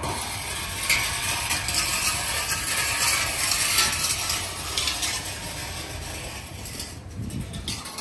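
A dense mechanical clicking rattle that swells over the first few seconds and fades toward the end.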